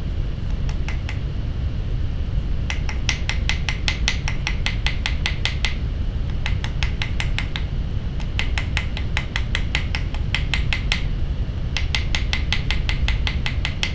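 Small riveting hammer's cross peen tapping a copper tube rivet against a steel bench block in quick light strikes, about eight a second, in runs of a few seconds with short pauses, texturing and spreading the rivet head. A steady low hum runs beneath.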